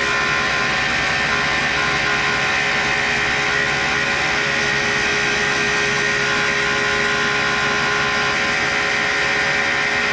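1940s Cincinnati tool and cutter grinder running a 6-inch diamond parting wheel at about 4500 rpm, steadily grinding a deep cut through thick carbide, with the dust vacuum running alongside. It makes an even whine with several steady tones over a hiss, unchanging throughout.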